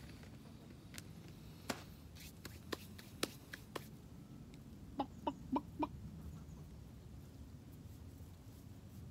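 A chicken clucking four short times in quick succession about five seconds in, after a few scattered light clicks.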